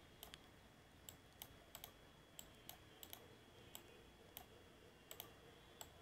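Faint, irregular clicks of a computer mouse, about fifteen over a few seconds, over low room hiss.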